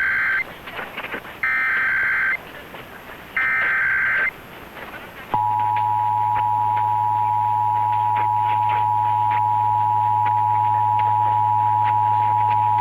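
Emergency Alert System test received over AM radio: short bursts of the SAME digital header data, three in a row about a second apart, with faint static crackle between them. About five seconds in, the steady two-tone EAS attention signal starts, with a low hum under it.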